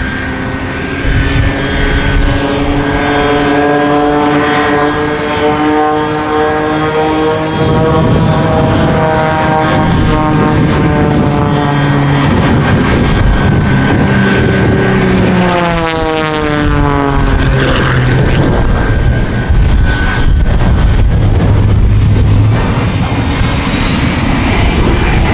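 Shockwave jet truck's three jet engines running with a loud roar as the truck makes its run. An aerobatic propeller plane's engine note rises slowly over it, then falls steeply in pitch as the plane passes, a little past the middle.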